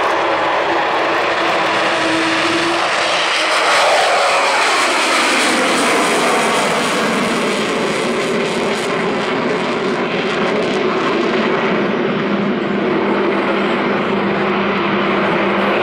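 Avro Vulcan XH558's four Rolls-Royce Olympus turbojets at take-off power, a loud jet roar with the Vulcan's howl. Its pitch falls from about three to six seconds in as the bomber passes, then settles to a steadier, lower drone as it climbs away.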